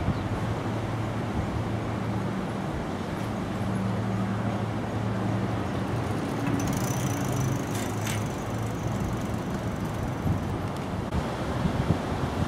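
Street traffic noise with a steady low engine hum, and a brief high squeal that ends in a click about halfway through.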